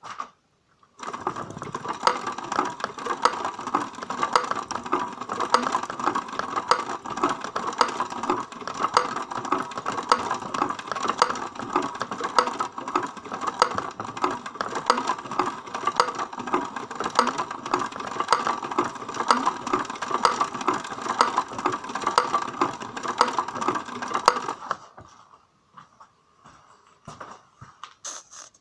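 BMW M52 straight-six engine running with a fast, even mechanical ticking knock, the knock being hunted for. It starts about a second in and dies away a few seconds before the end.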